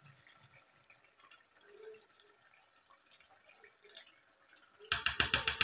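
Almost no sound at first. Then, near the end, about a second of rapid sharp clicks: a metal spoon scraping and tapping paste out of a bowl into the cooking pot.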